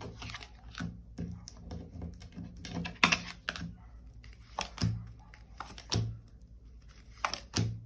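Tarot cards being handled and laid on a table: a run of irregular light taps and clicks, with a few sharper ones after about three seconds and two close together near the end.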